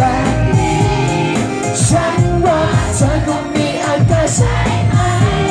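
Thai pop song with a steady beat and a male voice singing into a handheld microphone, played loud through stage PA speakers.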